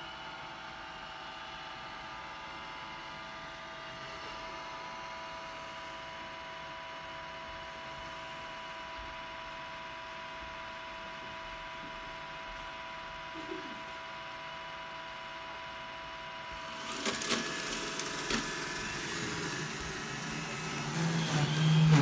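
iRobot Roomba j7 robot vacuum running, a steady motor whine with a few fixed tones as it drives back to its Clean Base. About 17 s in come knocks and clatter as it climbs onto the base, rising to a louder low hum just before the end as it docks.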